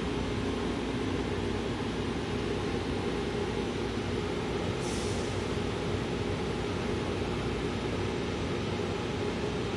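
Steady hum of a Taipei Metro Wenhu line train standing at the platform, with a brief hiss about five seconds in.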